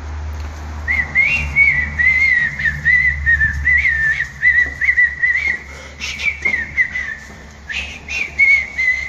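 A person whistling a wavering tune in short phrases, pausing briefly past the middle, with a low rumble early on and a few knocks.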